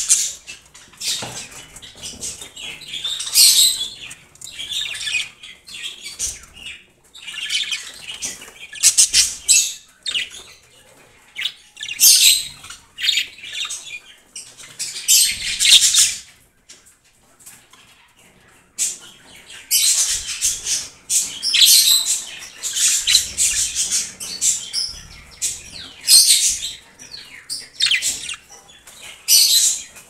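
Budgerigars chattering in clusters of short, high chirps and squawks, with a brief lull a little past halfway.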